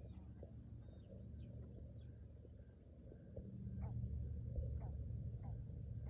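Frogs calling: a steady, high-pitched pulsing trill throughout, with a few short falling chirps in the second half, over a low rumble that grows louder about halfway through.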